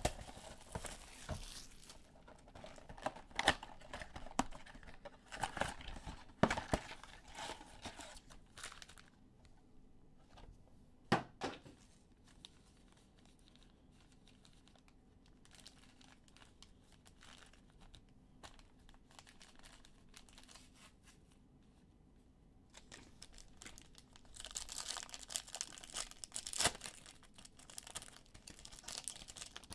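Foil wrappers of Panini Prizm football card packs being torn open and crinkled by hand. The crinkling comes in two spells, for the first several seconds and again about two-thirds of the way through, with a quiet stretch and a single click between.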